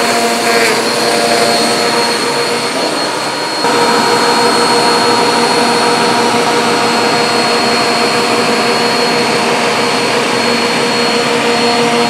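Bissell CleanView Compact Turbo upright vacuum cleaner (model 3437F) running steadily: an airy rush with a high whine over it. About three and a half seconds in, the sound steps up a little louder and stays there.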